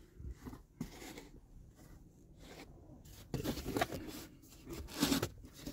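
Fabric headliner and plastic interior trim being handled and pulled: irregular rustling and scraping with a few light clicks, sparse at first and busier in the second half.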